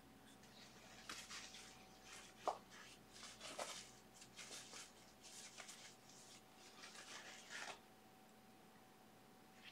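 Faint, scratchy rubbing strokes of a natural hog-bristle filbert brush working oil paint, a dozen or so short swishes with a sharper tap about two and a half seconds in.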